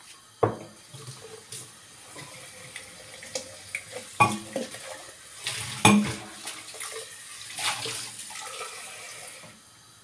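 Kitchen work sounds: a few sharp knocks of cookware or utensils, with a rushing, watery noise through the second half.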